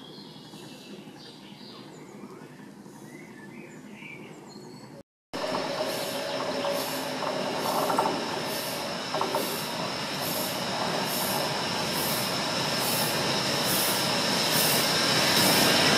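Faint birdsong, then, after a brief dropout, an approaching steam locomotive hauling old wagons: its exhaust chuffs about one and a half times a second and grows steadily louder, over a steady high squeal from the wheels.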